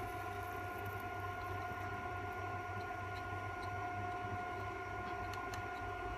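Mini induction heater running under load as its coil heats a metal shroud on a copper pipe joint: a steady whine of several tones over a low hum.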